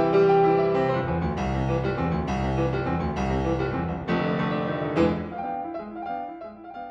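Instrumental background music with keyboard-like notes struck about once a second, fading out near the end.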